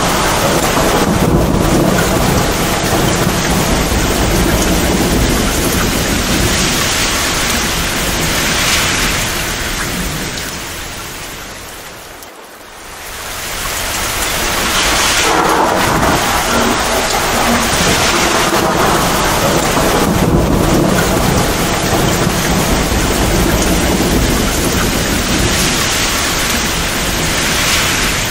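Heavy downpour of rain with rumbling thunder, a dense steady hiss. About halfway through it fades down for a moment and swells back up.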